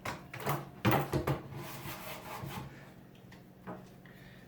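Telescopic shaft of a metal detector being slid and set to height: a cluster of clicks and knocks in the first second and a half, then lighter rubbing.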